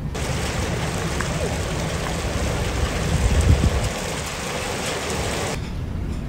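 Rain and fast-running floodwater hissing over a flooded city street, with a deeper vehicle rumble swelling about three and a half seconds in. The hiss cuts off suddenly near the end, leaving only a duller low traffic rumble.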